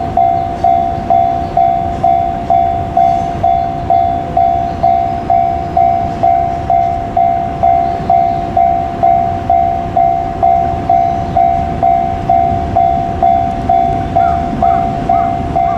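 Japanese level-crossing warning bell ringing steadily, nearly three even strikes a second, over the low rumble of a passing freight train.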